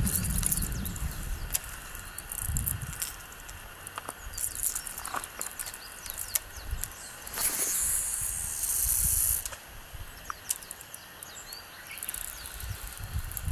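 Baitcasting rod and reel being worked while retrieving a lure: scattered light clicks and ticks, with a steady hiss lasting about two seconds in the middle. Low wind rumble on the microphone at the start and end.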